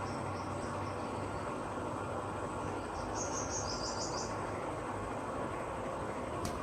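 Haier inverter air conditioner running its auto-clean cycle: a steady rushing noise with a low hum. About halfway through comes a short run of high chirps, and a single sharp click sounds just before the end.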